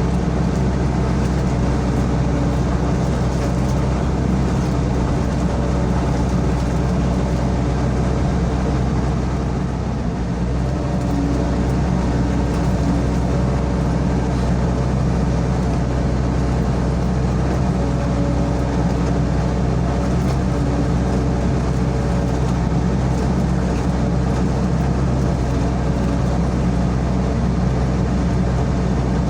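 Sany SY55C mini excavator's diesel engine running steadily at working speed, with mid-pitched tones that come and go as the machine works and a brief dip in level about nine seconds in.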